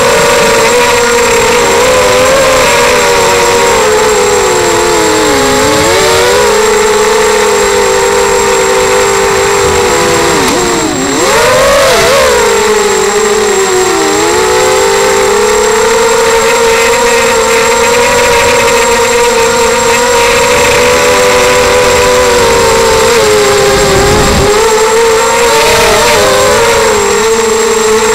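Electric motors and propellers of a ZMR250 racing quadcopter, heard from its onboard camera: a loud, steady buzzing whine whose pitch swells and dips with the throttle, with several brief dips, the deepest about eleven seconds in.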